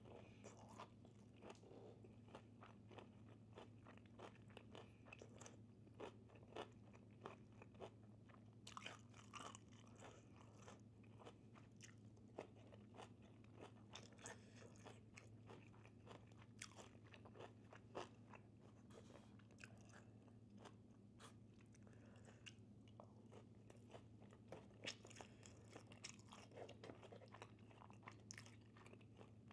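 Faint chewing and crunching of food, many small irregular crunches, over a steady low hum.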